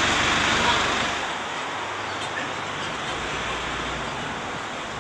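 Street traffic noise: a steady hiss and rumble of passing vehicles, louder for about the first second, then easing off.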